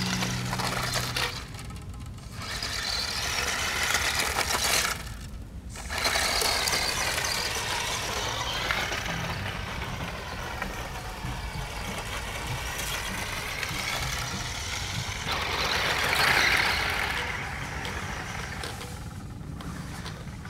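Mabuchi 540 brushed electric motor of a 1985 Cox/Kyosho Ultra Stock Toyota Supra RC stadium racer whining as the car drives over gravel, its pitch rising and falling with the throttle. The sound drops away briefly twice in the first six seconds and is loudest about three-quarters of the way through.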